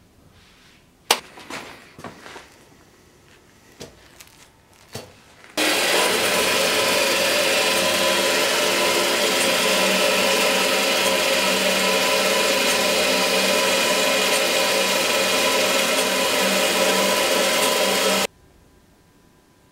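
A few scattered knocks and clatters, then a metal-cutting bandsaw cutting through a thick metal block: a loud, steady grinding whir with a ringing whine that starts about five seconds in and cuts off suddenly near the end.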